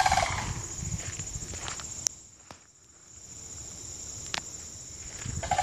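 Sandhill cranes giving short rolling calls, one at the start and another near the end, over footsteps on a dirt track. A steady high insect drone runs underneath.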